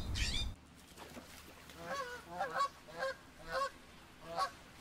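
A brief burst of bird chirps over a low rumble at the very start, then Canada geese honking: a series of short calls spread over the next few seconds.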